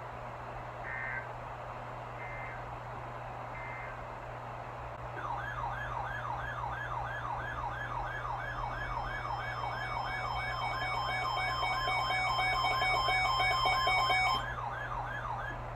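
Three short digital data bursts of a weather-radio alert header, then a siren-like alarm tone rising rapidly about three times a second. Steady alert tones join the sweep partway through, and it all cuts off suddenly near the end. Together they signal an incoming weather warning.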